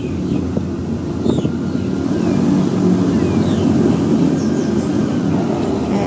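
Steady low rumble of an airboat engine running, with a few faint, short high-pitched bird chirps over it.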